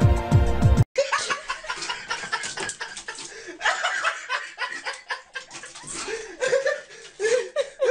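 Background music cuts off abruptly about a second in, followed by people laughing and chuckling.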